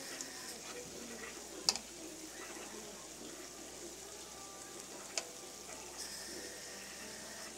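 Wrapped cheese sticks frying in shallow oil in a metal wok, a steady soft sizzle, with metal tongs clicking sharply against the pan twice.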